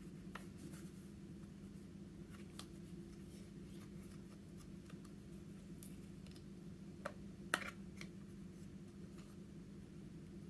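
Soft, scattered clicks and sticky taps from hands working makeup into slime, with the two sharpest clicks about seven and a half seconds in. A steady low hum runs underneath.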